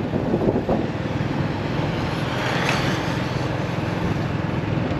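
Steady running noise of a moving vehicle: a low engine hum with road noise.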